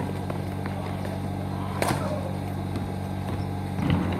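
Outdoor basketball game on an asphalt court: a few scattered knocks from the ball and players' feet over a steady low hum, with the sharpest knock about two seconds in.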